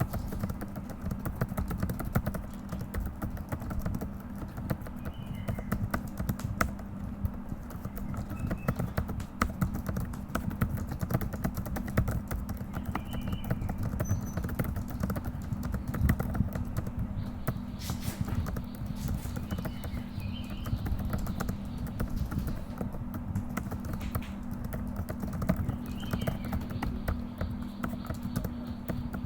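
Fast typing on a computer keyboard: a dense, uneven stream of key clicks throughout, over a steady low hum.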